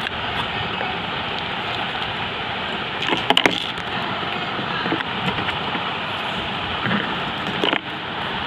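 Steady rushing background noise, with a few light clicks and knocks of hard plastic action figures being handled, the loudest a little after three seconds in.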